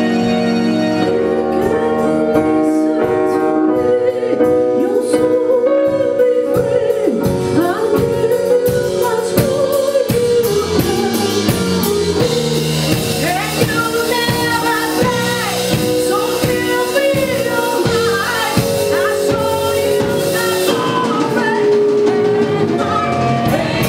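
Live rock band playing: drum kit under sustained held chords, with a woman's singing coming in about halfway through.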